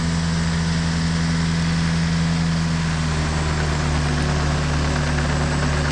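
Ditch Witch MX502 mini excavator engine running steadily near idle, its pitch dropping slightly about halfway through.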